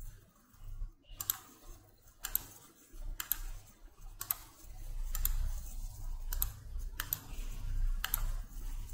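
Sharp computer mouse clicks, about one a second and some in quick pairs, over a low steady hum.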